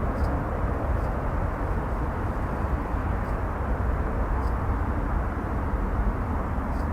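Jet airliner engines running with a steady, deep rumble.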